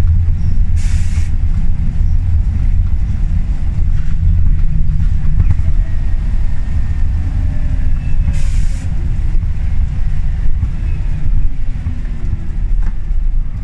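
Inside a Scania L94UB single-deck bus on the move: a steady low rumble from the engine and road. Two short hisses of air come about a second in and again about eight seconds in. A faint whine falls in pitch over the second half.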